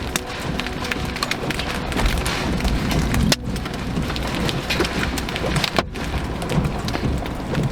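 Heavy rain pelting a vehicle, with a dense patter of many sharp, irregular strikes on the body and glass.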